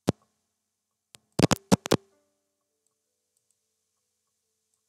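Computer mouse clicks: one sharp click at the start, then a quick run of four or five clicks about a second and a half in, as objects on screen are selected.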